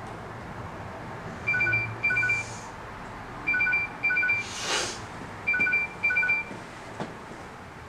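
Electronic alarm beeping: short two-pitch tone bursts in pairs, one pair about every two seconds, with a brief rustle of bedding about halfway through.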